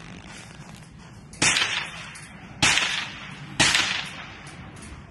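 Three single gunshots about a second apart, each a sharp crack with an echoing tail.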